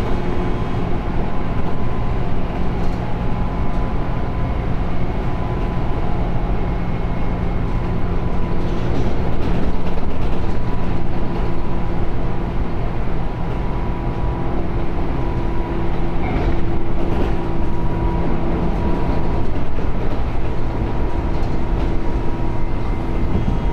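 Tobu 9000-series electric trainset 9105F running: a steady rumble with several held whining tones over it. This is the running sound flagged as abnormal (異音).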